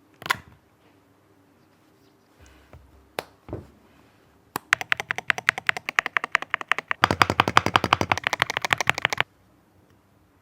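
Fast typing on a Yunzii C68 mechanical keyboard. A few separate knocks and clicks come first, then about four and a half seconds of rapid keystrokes, which turn deeper and denser for the last two seconds and stop suddenly.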